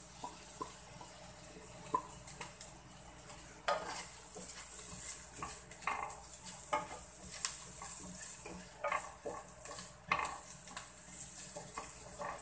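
Minced garlic and ginger sizzling in hot oil, with a wooden spatula scraping and knocking against the pan as it is stirred.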